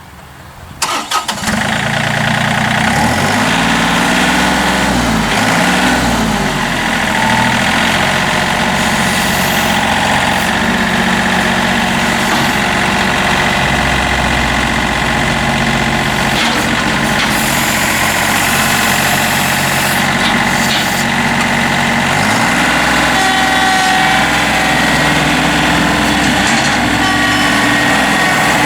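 A John Deere 3025E's three-cylinder Yanmar diesel engine cranking and starting about a second in, then running. Its speed rises and falls a few times early on and again later, otherwise it idles steadily.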